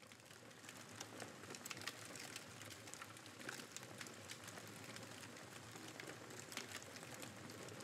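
Faint, quiet room tone: a low hiss with scattered soft crackles and ticks throughout.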